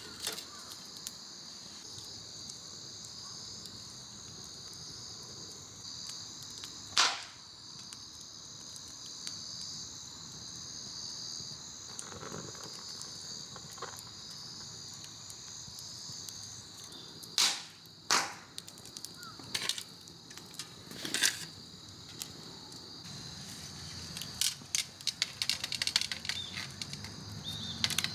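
Wood campfire crackling, with a few loud sharp pops and a quick run of small crackles near the end, over the steady high chirring of insects.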